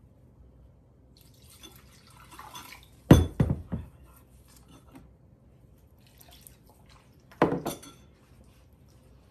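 Hands working sel roti dough in a stainless steel bowl: soft rustling and squishing, broken by clanks of the bowl, a quick run of several about three seconds in and a shorter burst about seven and a half seconds in.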